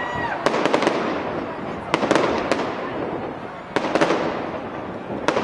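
Aerial fireworks exploding overhead: clusters of sharp bangs about half a second in, around two seconds, near four seconds and just before the end, with a whistling tone trailing off at the very start.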